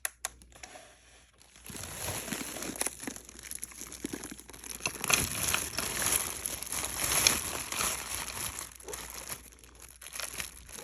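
A bag of items crinkling and rustling as it is handled and set on a scale to be weighed, starting about two seconds in and dying down near the end. There is a sharp click at the very start.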